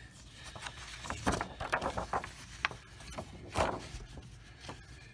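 Paper game cards being handled and sorted through in a pile: irregular rustling, sliding and light tapping of card stock.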